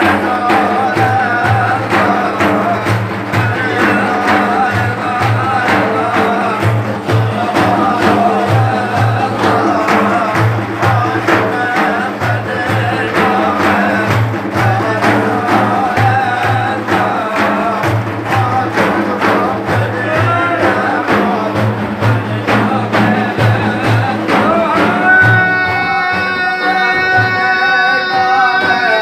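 Sufi devotional chanting (an ilahi) led by a male voice over a steady drum beat, with one long held note near the end.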